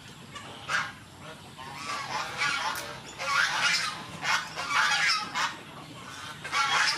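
Geese honking repeatedly, a string of short calls that come thicker in the second half.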